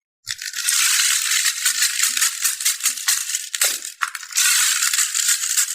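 Many small plastic balls clattering and rattling against each other in a dense, continuous stream, with a brief lull about four seconds in.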